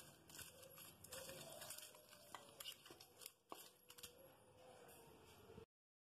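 Faint wet squishing and small clicks of a hand mixing raw chicken pieces in a yogurt marinade in a steel bowl. The sound cuts off to silence about five and a half seconds in.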